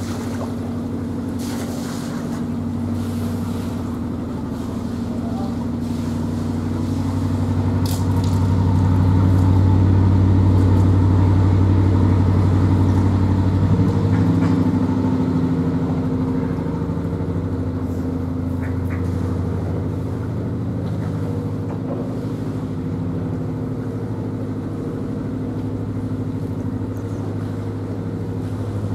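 A narrowboat's engine running steadily while the boat moves along the canal. It gets louder for several seconds in the middle, then settles back to an even note.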